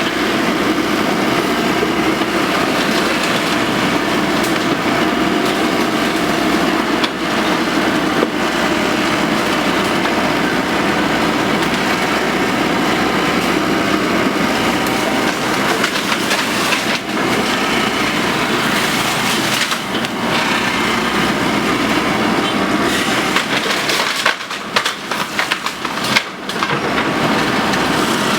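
An excavator's diesel engine and hydraulics run steadily while its bucket breaks and crushes bamboo, the stems cracking and splintering. Sharper cracks come in a cluster near the end.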